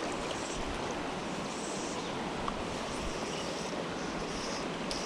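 Steady rush of a shallow mountain river running over a rocky bed.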